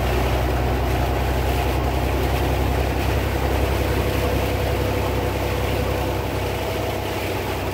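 Steady in-cabin drone of a car driving on a wet highway: engine and tyres on wet pavement make an even low rumble with a hiss above it.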